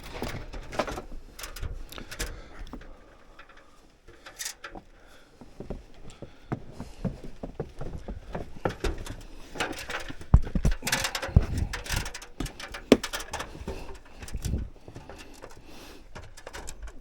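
Irregular knocks, scrapes and rustling from someone moving about and handling things, with a few sharper knocks in the second half.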